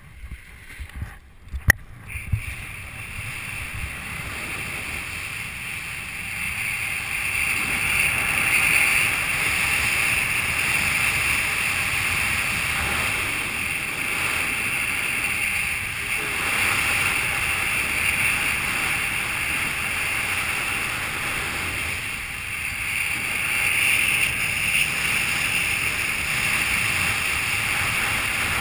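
Steady rush of wind over a head-mounted camera's microphone during a fast speed-riding descent, swelling and easing a little. In the first two seconds, a few sharp knocks as the skis run over rough, chopped snow.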